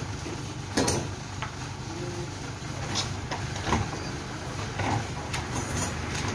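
Crane truck's engine running steadily, powering the Furukawa Unic UR-V340 crane, with several short knocks and scrapes scattered through, the loudest about a second in.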